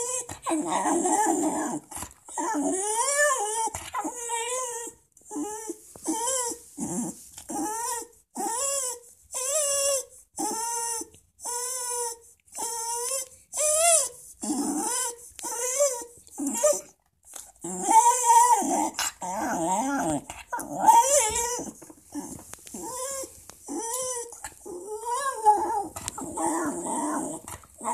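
Welsh terrier whining and yowling in a long run of short calls, about one a second, each bending up and down in pitch, as the dog 'talks'.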